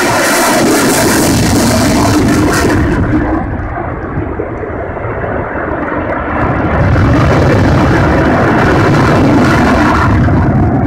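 Loud jet noise from a Eurofighter Typhoon FGR4's twin EJ200 turbofan engines as it flies its display. The noise eases slightly a few seconds in, then comes back with a deeper rumble about seven seconds in.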